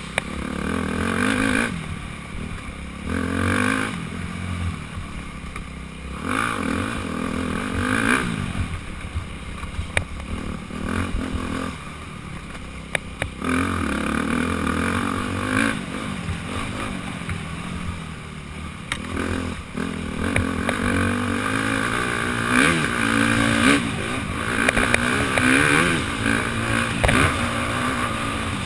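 Dirt bike engine revving up and dropping back again and again as the rider works the throttle and gears along a rough trail, heard from the rider's helmet, with scattered knocks and rattles from the bumps.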